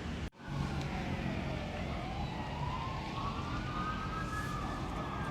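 Distant emergency-vehicle siren wailing, its pitch slowly rising and falling, over a steady low rumble of city traffic. The audio cuts out for a split second just after the start.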